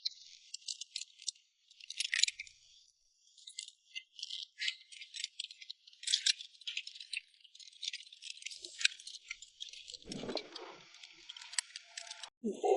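Small metal parts rattling and clinking in irregular, jingling bursts throughout.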